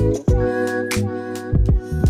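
Background music with a steady beat: deep kick drums that drop in pitch and crisp snare hits under sustained keyboard chords.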